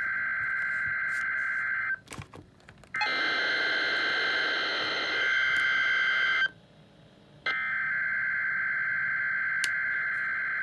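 NOAA Weather Radio SAME/EAS header tones: digital data bursts, a harsh buzzing screech. One burst ends about two seconds in, and two more of about three and a half seconds each follow, with a pause of about a second between them. They are the encoded alert header of a Required Weekly Test, the signal that switches on specially built weather alert receivers.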